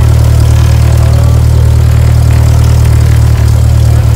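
Cessna 172's piston engine and propeller running steadily, heard from inside the cabin.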